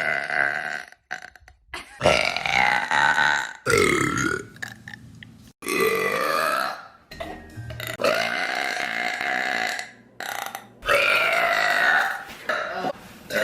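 A person burping loudly over and over: about seven long, pitched burps in a row, each lasting a second or more, with short gaps between them.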